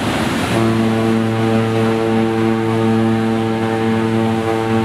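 Ship's horn sounding one long, steady, deep blast that starts about half a second in and holds without change, over the rush of wind and water.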